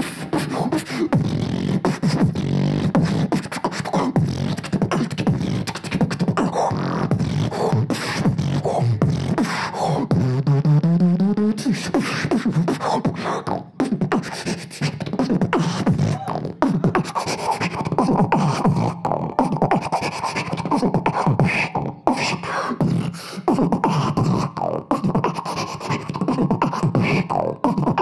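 Solo beatboxing into a handheld microphone: a fast, dense beat of mouth-made kicks, snares and hi-hats. A rising pitched glide comes about ten seconds in, and a held pitched tone runs over the beat through the second half.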